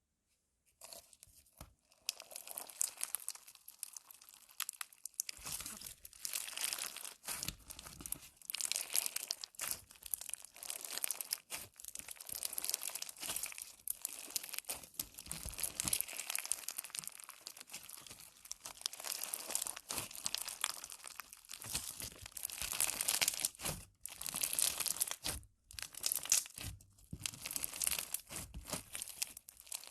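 Dry soap being cut with a knife: dense, crisp crunching and crackling that starts about a second in and carries on with a few brief pauses.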